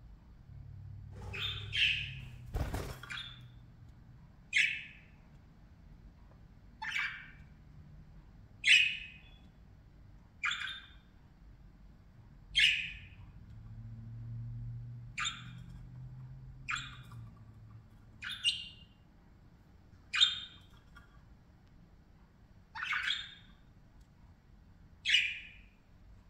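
Budgerigars calling: short, sharp chirps repeated about every two seconds, a dozen or so in all, with a sharp knock about three seconds in.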